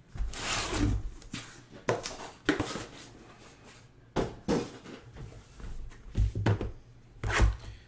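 Irregular knocks, scrapes and rustles of cardboard trading-card boxes and packaging being handled on a table.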